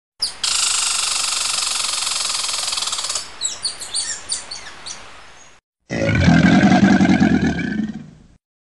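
Animal call sound effects: a long, high screeching call that breaks into short chirps and fades, then after a brief gap a lower, louder growling roar lasting about two and a half seconds.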